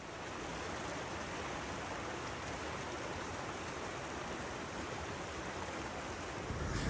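Steady rushing noise of running water, like a mountain stream.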